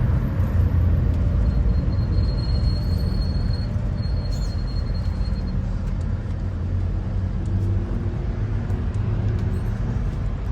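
Cabin noise inside a moving minibus: a steady low engine and road rumble, with a thin high whine from about one and a half to five and a half seconds in.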